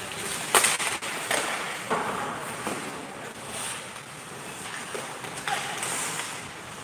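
Ice hockey play on a rink: a steady scrape and hiss of skate blades on the ice, with several sharp clacks of sticks and puck, the loudest about half a second in.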